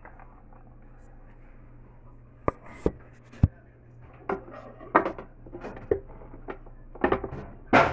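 Three sharp taps, then a run of soft knocks and rustles as washed long beans are handled and laid on a wooden chopping board. The loudest knock comes near the end.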